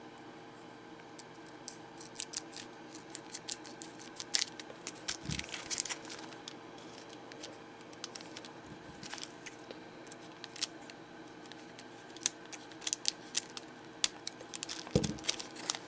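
Scissors snipping through a foil trading-card booster pack while the foil wrapper crinkles, giving a run of small sharp clicks and crackles in several flurries. Two low thumps, about five seconds in and near the end.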